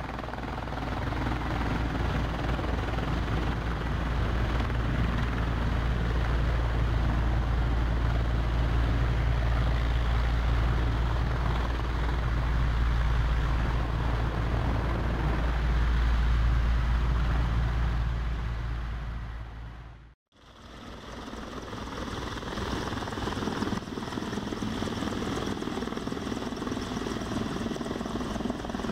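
Mi-24 military helicopter flying low, its rotor and turbines making a steady deep rumble. About two-thirds of the way through the sound cuts out for an instant and comes back thinner, with less bass.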